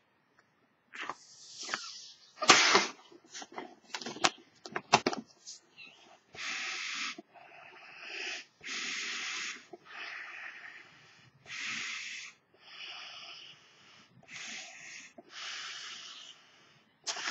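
Latex duck balloon being blown up by mouth, starting at the beak. A few seconds of sharp sputtering clicks, then a run of hard breaths forced into the balloon, each about a second long with short pauses between.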